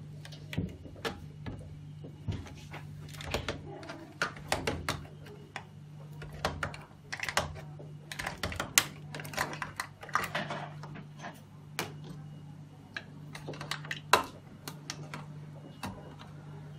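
Irregular clicks, taps and knocks of plastic reagent bottles, screw caps and tubing being handled and set down on a table, with short rustles in between. A low steady hum runs underneath.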